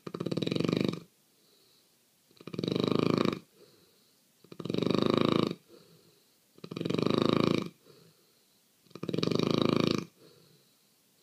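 Snoring in a steady rhythm: five long snores, each about a second long, coming about every two seconds with near quiet between them.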